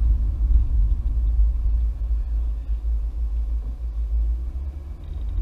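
BMW E92 M3 with its V8 engine driving slowly, heard from inside the cabin: a deep, steady rumble of engine and road, easing off slightly near the end.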